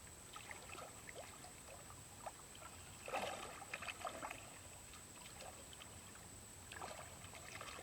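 Water splashing and sloshing in three short bursts, the middle one the loudest.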